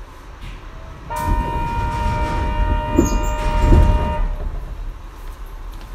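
A steady pitched warning tone sounds for about three seconds while the train stands at the platform with its doors open, with two short thuds near its end.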